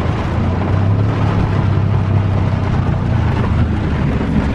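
Four-wheel-drive truck engine running steadily at low speed with a low hum, under a steady rushing noise.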